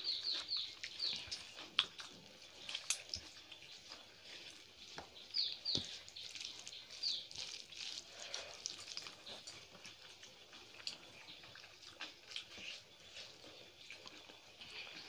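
Quiet eating sounds of chewing, lip smacks and small clicks, with high chirps in quick series from a bird in the background near the start and again around the middle.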